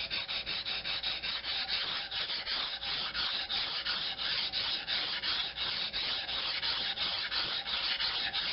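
A steel knife blade, a homemade knife ground from an old file, stroked quickly back and forth on a wet Japanese water stone. It makes an even, rhythmic scraping at about five strokes a second. The blade is slow to cut on the stone.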